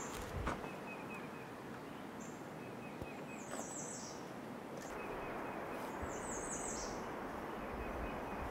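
Songbirds calling in leafy woodland: a quick falling run of high notes twice, about three seconds apart, with fainter short repeated notes, over a steady outdoor hiss. A couple of soft low thumps about half a second in.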